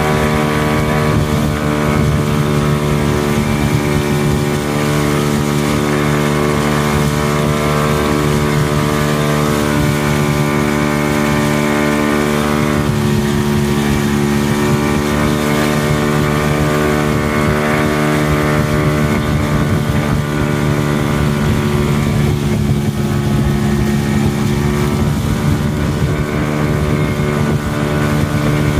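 Fiberglass speedboat's engine running steadily at speed, heard from on board as a loud, even drone.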